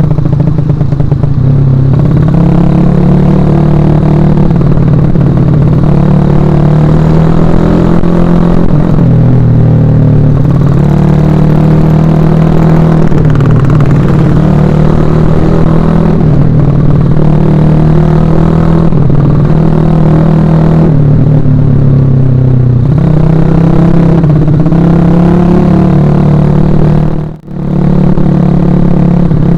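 Suzuki Shogun Axelo R motorcycle engine running under way, its note rising and falling repeatedly as the throttle is worked. Near the end the sound drops out sharply for an instant and comes straight back.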